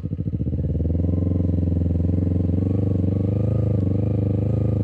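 Kawasaki ZZR250 motorcycle's 248 cc parallel-twin engine running as the bike is ridden slowly. It picks up revs over the first second, then holds steady at low revs.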